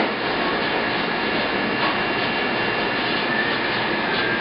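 Steady rushing noise with a faint high hum, with no clear knife strokes standing out.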